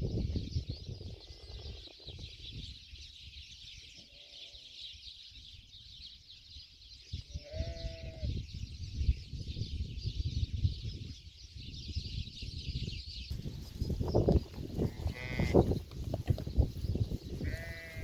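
Sheep bleating several times, the clearest call about eight seconds in and more near the end, over a low rumble and a steady high hiss that stops about two-thirds of the way through.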